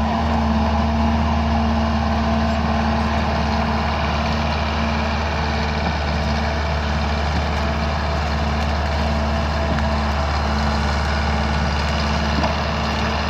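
Caterpillar bulldozer's diesel engine running steadily at a constant pitch, with a low hum and a steady higher drone.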